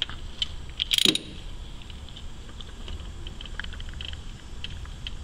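Hand socket ratchet on a long extension clicking in short irregular strokes as it tightens the new starter's mounting bolts, with a louder clatter about a second in.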